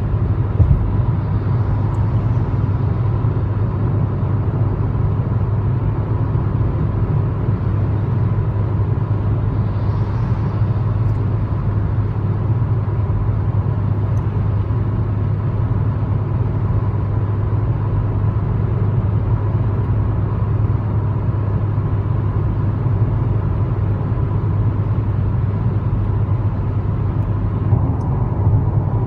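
Cabin noise inside a Proton Persona 1.6 manual cruising at 110 km/h: a steady low rumble of engine and road, with tyre and wind hiss above it and a faint steady high tone.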